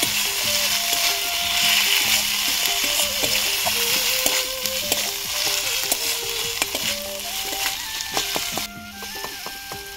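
Onion, ginger, garlic and green chillies sizzling in hot oil in a metal kadai, with a metal spatula stirring and scraping against the pan as the aromatics are fried until their raw smell is gone. The sizzle drops away near the end, leaving faint background music.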